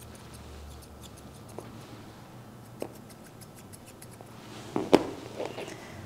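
Grooming shears snipping through a Shih Tzu puppy's coat in clusters of quick, light snips, with one louder click about five seconds in.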